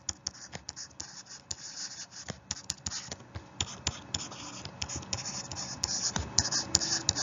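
Irregular light clicks and scratchy rubbing close to the microphone, heavier in the second half, like handling at a desk.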